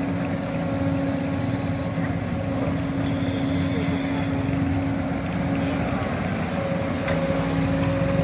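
Excavator running steadily while working: a constant mechanical drone with an even hum.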